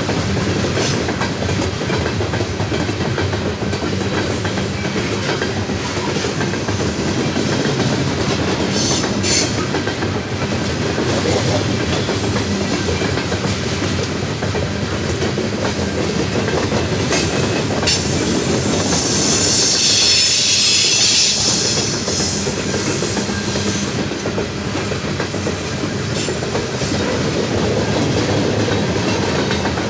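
Loaded coal hopper cars rolling past on steel rails: a steady rumble with clickety-clack of the wheels over rail joints. About two-thirds of the way through, a high-pitched wheel squeal rises for a few seconds.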